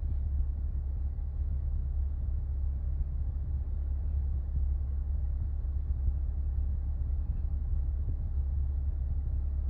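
Steady low rumble of a car heard from inside its cabin, with no other distinct sounds.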